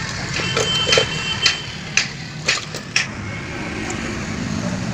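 About five sharp knocks, roughly two a second, from tyre-repair work, over a steady hum of street traffic.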